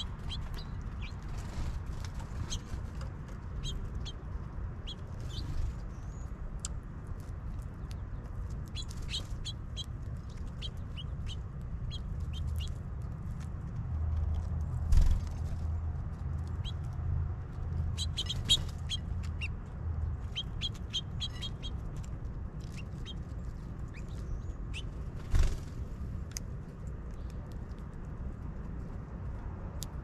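Small songbirds chirping: many short, high chirps in scattered runs over a low steady rumble. Three sharp knocks stand out, about halfway through, a few seconds later and toward the end.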